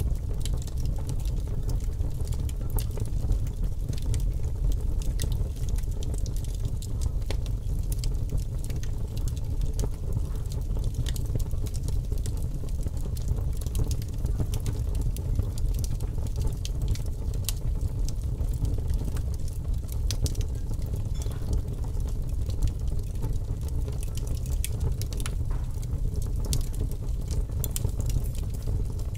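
Crackling fire: scattered sharp pops and snaps over a steady low rumble.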